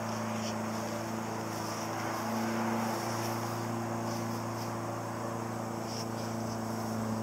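A steady low hum, with faint insect chirping above it.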